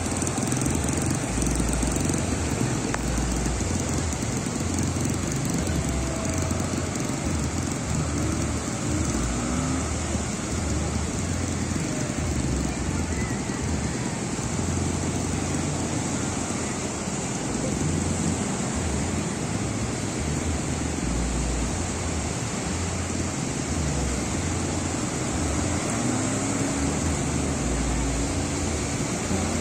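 Small surf breaking and washing up a sandy beach, a steady rushing noise, with wind rumbling on the microphone.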